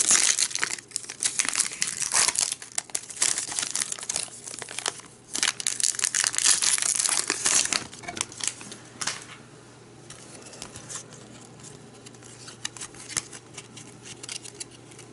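Foil-lined baseball card pack wrapper being torn open and crinkled, loud for about the first eight seconds. After that, only quieter clicks and rustles of the stack of cards being handled.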